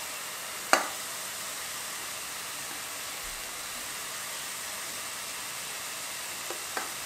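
Red amaranth greens sizzling in oil in a nonstick pan on a low flame: a steady soft hiss. A sharp tap comes about a second in and two light taps near the end.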